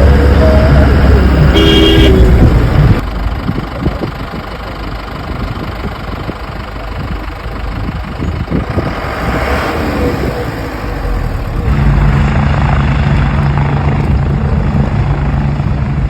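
Motor vehicle noise, with a short horn toot about two seconds in; a steady low engine hum sets in about twelve seconds in.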